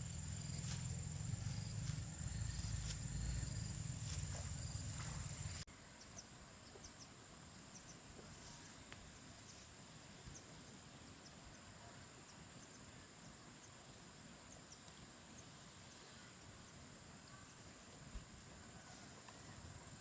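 Outdoor rural ambience with a steady high-pitched insect drone. For the first six seconds a louder low rumble with scattered clicks lies under it; after an abrupt cut only the quieter drone and faint background remain.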